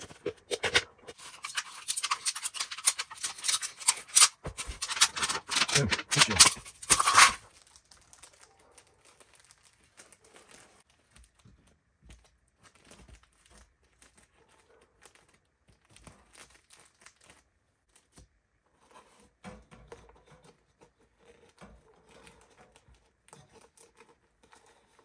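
Knife cutting and tearing through a thin aluminium beer can, a dense scratchy crinkling with sharp clicks that stops suddenly about seven seconds in. After that only faint rustling and handling sounds.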